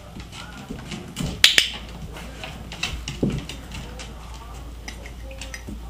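An English mastiff puppy's and a small dog's claws clicking and tapping on a tile floor, with a sharp two-part click about a second and a half in from the training clicker.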